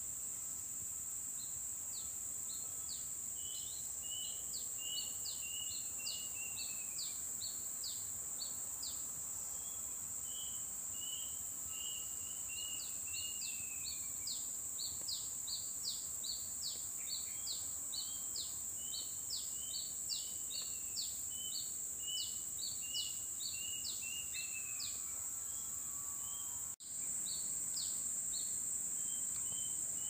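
Tropical forest ambience: a steady, high-pitched insect drone under a songbird singing long runs of quick high notes mixed with lower falling slurs, in two bouts with a pause between them. The sound briefly cuts out near the end.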